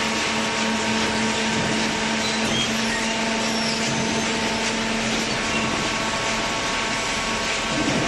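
Hydraulic baler's power unit running: a steady mechanical hum from the electric motor and hydraulic pump, with a constant low tone and a noisy whir.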